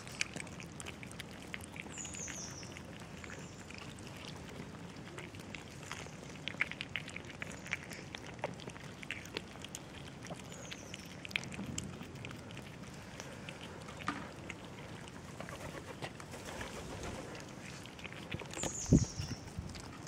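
Kittens eating from a food tray, with soft small clicks and smacks throughout. A bird gives short high falling chirps three times, and a single loud bump comes near the end.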